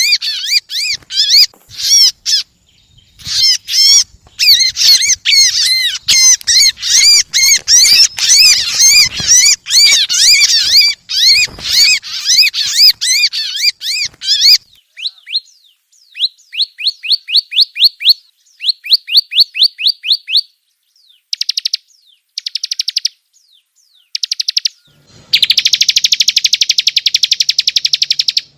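Ciblek (prinia) song played as a lure recording. First comes a long, fast chattering run of high arched notes. Then come trains of quick rising notes, a few short bursts, and near the end a dense, buzzing trill.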